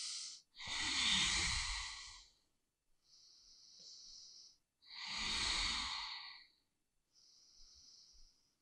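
A woman's slow, audible breathing: two long, louder breaths, about a second and five seconds in, alternate with two softer ones.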